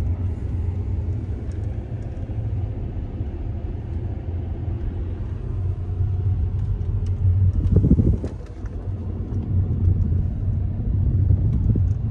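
Car driving, a steady low rumble of engine and road noise, swelling louder about eight seconds in.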